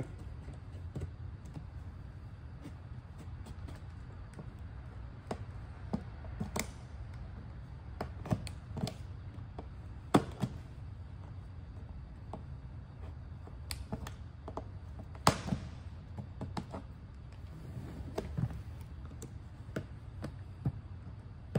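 Irregular taps, clicks and a few sharper knocks as a box cutter is worked around the cut-out in a hollow plastic skeleton head, one knock trailing into a brief scrape, over a steady low hum.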